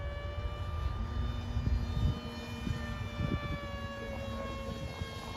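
Radio-control flying-wing model plane's motor and propeller whining steadily in flight, its pitch sinking slowly, over the rumble of wind on the microphone.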